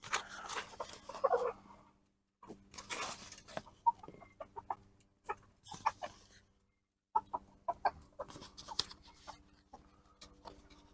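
Domestic hens clucking in short calls, with short sharp clicks among them, in three bursts split by brief silent gaps.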